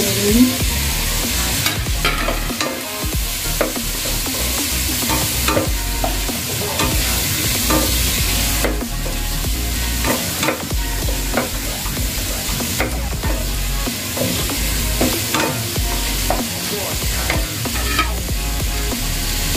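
Chopped onions sizzling in hot oil in a nonstick pot, stirred with a spatula that scrapes and knocks against the pan at irregular moments.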